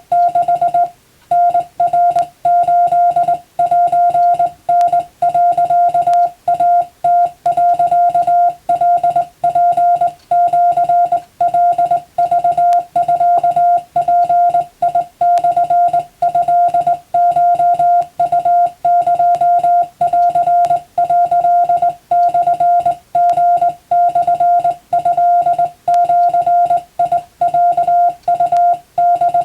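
Morse code (CW) practice tone: a single steady-pitched beep, about 700 Hz, keyed on and off in rapid dots and dashes with short breaks between characters, sending Japanese wabun telegram text.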